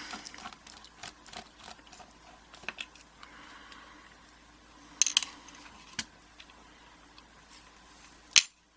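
Small metal clicks and taps as the back screws of a mortise lock cylinder are worked out with a tool and the parts are handled. The taps are scattered and sharp, with a couple about five seconds in and the loudest near the end.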